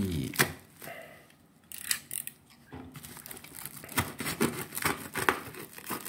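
Scissors snipping through a plastic mailer bag wrapped in packing tape, with the plastic packaging crinkling. The sound comes as a run of short, sharp cuts.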